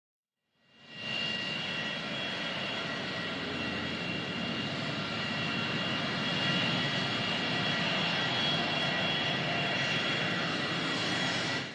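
Sound effect of an aircraft-style engine drone: a steady rushing noise with a high whine over it, fading in about a second in and fading out near the end.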